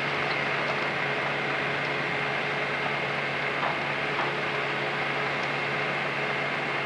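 Terra Gator 8133 self-propelled slurry injector working a grass field, injecting slurry: a steady engine drone with a hiss over it, unchanging throughout.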